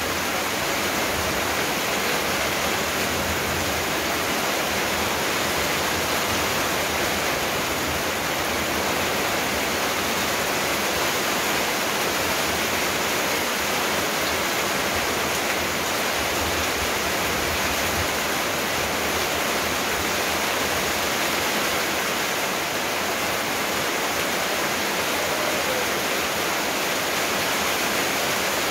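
Steady, even rushing noise, unchanging throughout, with no voice or distinct events in it.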